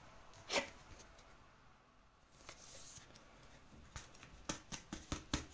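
Trading cards being handled on a table: a short rustle about half a second in, then a run of light clicks and taps in the last second and a half.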